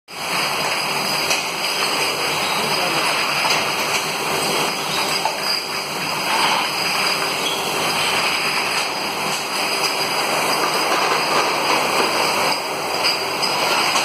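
Glass bottle washing machine running: a steady rush of water spray mixed with machine noise.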